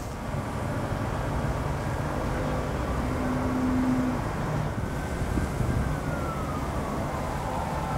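Steady rumble of road traffic with a faint siren wailing in the distance: its pitch slides slowly down over the last few seconds, then starts to climb again.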